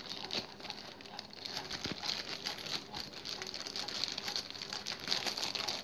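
Plastic courier mailer bag crinkling and rustling as it is handled and pulled open along its cut side, a continuous irregular crackle.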